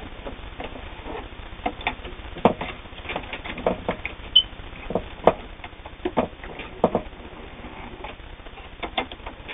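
Viking Husqvarna Optima 150 sewing machine sewing a straight stretch stitch, feeding the fabric back and forth: a low running background with sharp mechanical clicks and knocks at uneven spacing.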